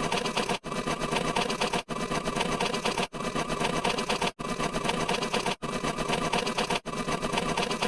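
A short clip of dense mechanical rattling, looped over and over, with a brief cut about every 1.2 seconds where each repeat starts again.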